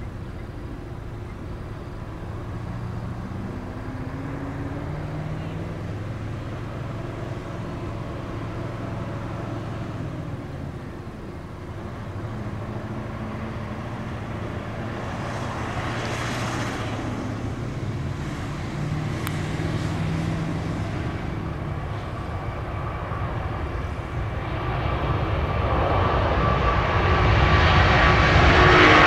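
Jet airliner engines rumbling at a distance, then growing steadily louder over the last few seconds as the departing aircraft comes closer.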